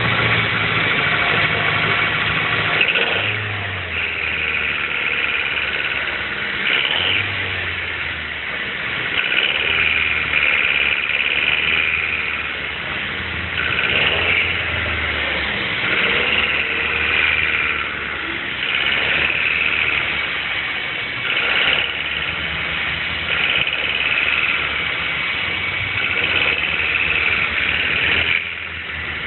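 Mazda 3 1.6-litre engine running with a knocking rattle, its speed rising and falling several times. The rattle is the engine knock the owner is showing on this car at 75,000 km.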